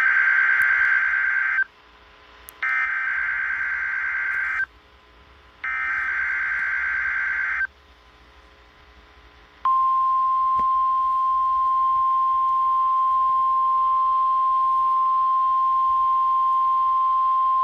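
NOAA Weather Radio Emergency Alert System weekly test signal: three warbling two-second bursts of SAME digital header data about a second apart, then a single steady alert tone of about 1 kHz (the 1050 Hz weather radio warning alarm tone) that starts a couple of seconds later and holds, all over faint radio hiss.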